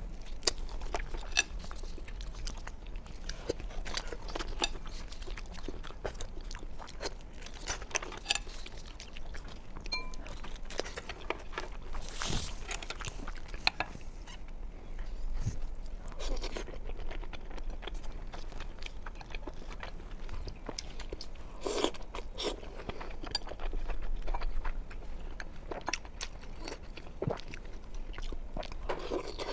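Close-miked eating sounds of raw seafood from a sashimi platter: wet chewing, biting and lip smacks, with a few sharper crunches and clicks at irregular intervals.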